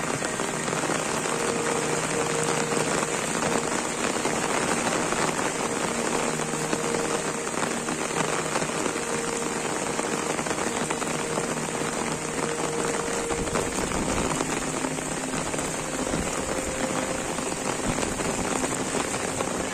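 Heavy rain falling steadily onto a flooded street and its sheets of standing water, an even, unbroken hiss of drops hitting water.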